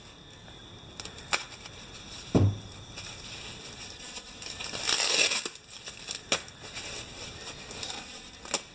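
Thin foam packing sheet and a plastic bag rustling and crinkling as a part is unwrapped by hand. There is a dull thump about two and a half seconds in, a longer burst of crinkling about five seconds in, and a few sharp clicks.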